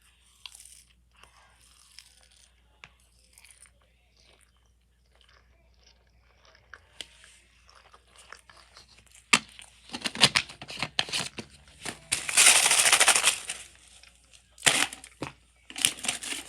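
Snack packaging crinkling and tearing. After several quiet seconds with faint clicks, it comes in loud crackling bursts over the second half, the longest and densest lasting a second or so.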